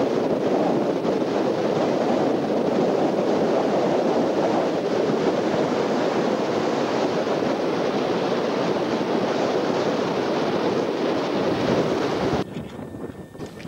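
Strong wind buffeting the microphone, a loud steady rushing noise; it drops away suddenly near the end.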